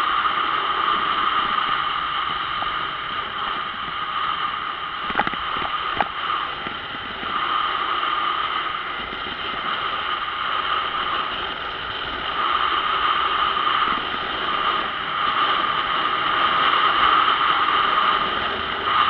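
Motorcycle being ridden along a road: steady engine and wind noise, with two sharp knocks about five and six seconds in.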